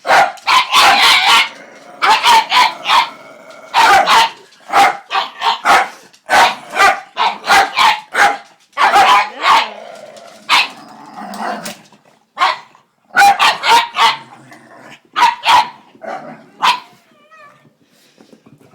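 Pug barking in clusters of quick, sharp yaps, over and over, then a short wavering whine near the end as the barking stops.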